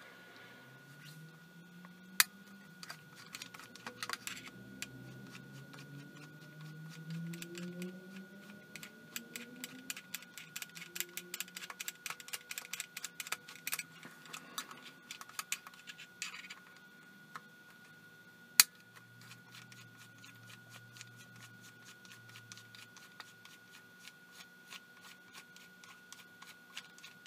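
Screwdriver working small screws inside a night vision monocular's housing: scattered light clicks and scrapes, with a dense run of rapid ticking in the middle and two sharper single clicks. A faint steady high tone and a low drone rising in pitch over the first ten seconds sit underneath.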